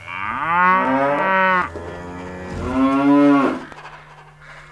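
Two long cow moos. Each one rises in pitch at the start and then holds, and the second is a little shorter.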